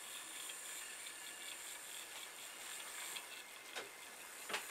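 Small kit robot's DC gear motors running faintly, with a steady high whir. A couple of light knocks come near the end, the second the loudest.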